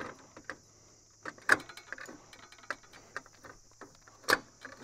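Scattered light clicks and ticks with two sharper knocks, about three seconds apart, over a steady high chorus of crickets.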